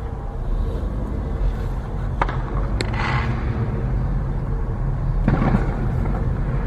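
Car driving slowly, heard from inside the cabin: a steady low engine and tyre rumble, with two sharp clicks a little over two seconds in.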